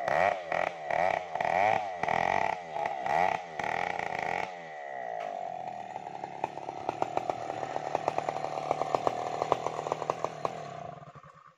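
Stihl chainsaw revved in quick repeated surges, about two a second, then held at a steady high speed for several seconds with a growing crackle of ticks, as when ripping a log lengthwise. It fades out near the end.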